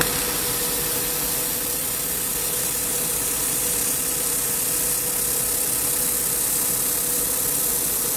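Handheld laser welding machine at work, welding 3 mm aluminium with wire feed: a steady hum carrying one constant tone, under a hiss.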